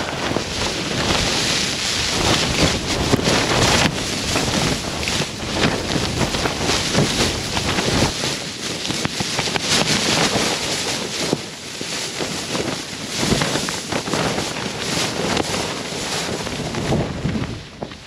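Very strong wind gusting over a small mountain tent in a snowstorm: a dense rushing with rapid flapping and cracking of the tent fabric, and heavy wind buffeting on the microphone, easing a little now and then between gusts.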